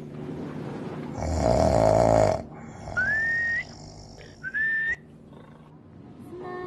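A person snoring: one loud rattling snore on the in-breath, then two short rising whistles on the out-breath. Music begins near the end.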